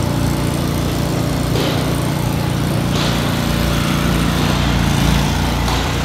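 Lincoln 305D engine-driven welding machine's diesel engine running at a steady speed, with a few brief hisses over the hum.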